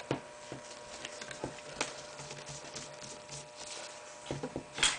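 Faint, scattered clicks and taps of a screwdriver and metal rifle parts being handled while the barrel band is loosened and taken off a Ruger 10/22. A sharper knock comes near the end.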